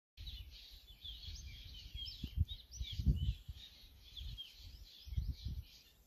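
Birds chirping and singing in quick, overlapping phrases, with gusts of wind rumbling on the microphone.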